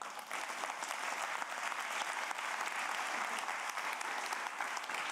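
Audience applauding, a steady clapping that begins right after the talk ends and continues until the end.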